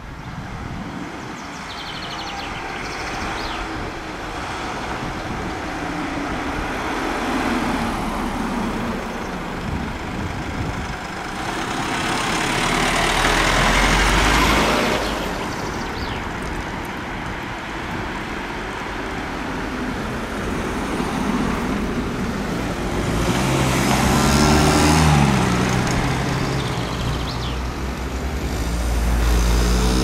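Motor vehicles driving past one after another on a street, engine and tyre noise swelling and fading, with the loudest pass-bys about 13 and 24 seconds in.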